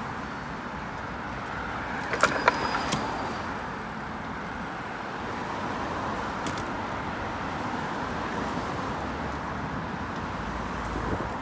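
Steady street noise of road traffic, heard while riding a bicycle along a city pavement. A short cluster of sharp metallic clicks and rattles comes about two seconds in.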